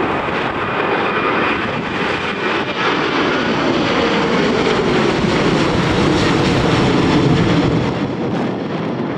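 A passing aircraft's engines, the pitch slowly falling as it goes by. The noise is loudest about seven seconds in and eases near the end, over wind buffeting the microphone.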